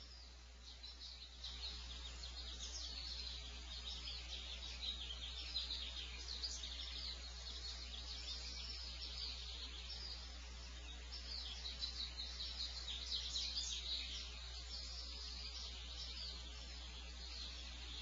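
Many small birds chirping and calling outside the barn owl nest box, a thin, busy chorus of short high chirps that swells and eases. Under it a steady low electrical hum from the nest camera's microphone, which grows louder about a second and a half in.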